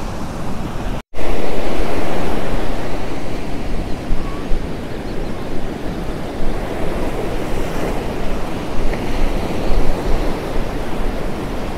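Surf breaking and washing up the beach, with wind buffeting the microphone. The sound drops out for an instant about a second in and comes back louder.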